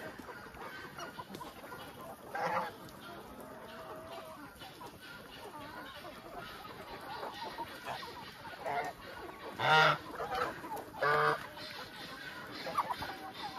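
Large flock of chickens clucking as they crowd around the feed, with a few louder honks from white domestic geese, the loudest about ten and eleven seconds in.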